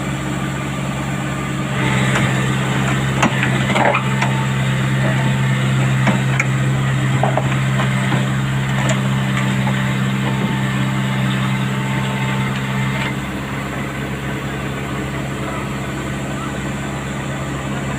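Heavy diesel engine of a backhoe running steadily, louder for a stretch from about two seconds in until about thirteen seconds. Scattered metal clanks and knocks come through, mostly in the first few seconds of the louder stretch.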